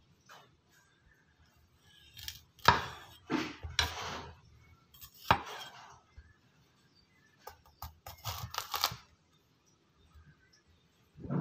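Kitchen knife cutting through a bitter melon and knocking on a thick wooden chopping block: a series of short cutting strokes in two bursts, a few seconds in and again near the end.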